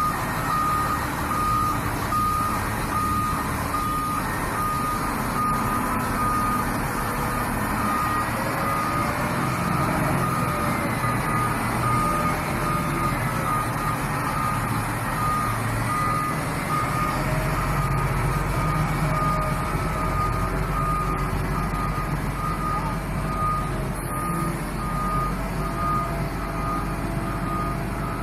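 Lonking wheel loader's reversing alarm beeping at an even pace over its diesel engine running, the engine pitch rising and falling a few times as the machine manoeuvres.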